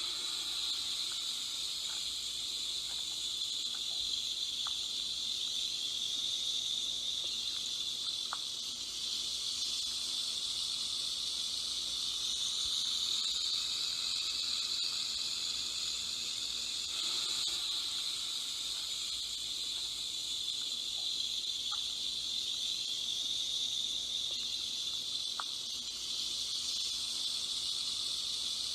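Rattlesnake shaking its tail rattle: a continuous high buzzing hiss that swells and eases slightly without stopping.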